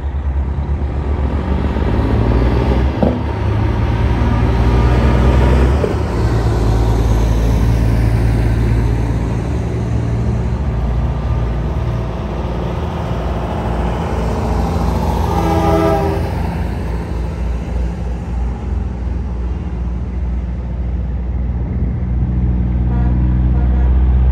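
Large diesel trucks running with a heavy low engine sound, and a short truck air-horn blast about two-thirds of the way through.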